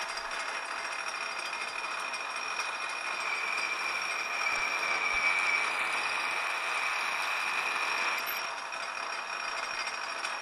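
Metal lathe running with a boring bar taking a pass inside a drilled bore, one of several passes made to open the bore out. A steady high whine runs throughout; the cutting noise grows louder for about five seconds in the middle, then drops back.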